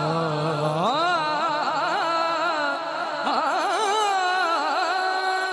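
Male naat reciter singing a long wordless melismatic run: the voice starts low, slides up about a second in, then winds through wavering ornaments and settles on a held note near the end.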